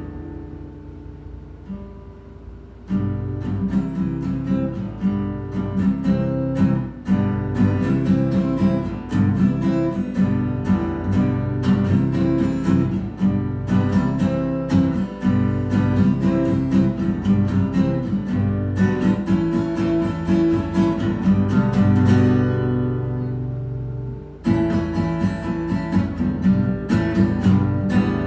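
Acoustic guitar being strummed. It starts soft with ringing chords, then breaks into steady rhythmic strumming after a few seconds. Near the end it eases into one ringing chord before the strumming picks up again.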